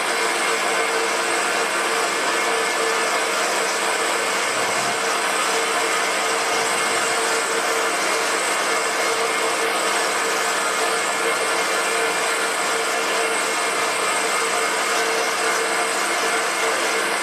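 Metal lathe running steadily at one pitch while its tool takes a turning cut along a brass bar.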